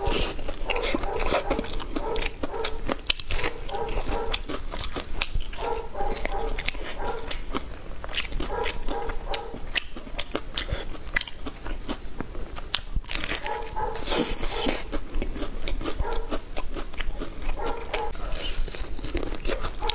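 Close-miked eating: crunchy bites and chewing with many crisp clicks and wet mouth sounds, a little louder and noisier about two-thirds of the way through.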